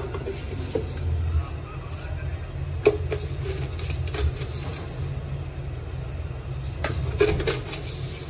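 Several scattered clinks of kitchen utensils against a cooking pot over a steady low rumble.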